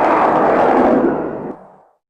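A cartoon sound effect: a loud, noisy rush without a clear pitch that fades away from about halfway through and ends in silence.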